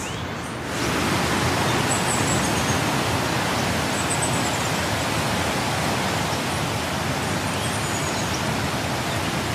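Rushing water of a waterfall, a steady full-range rush that steps up louder about a second in and then holds.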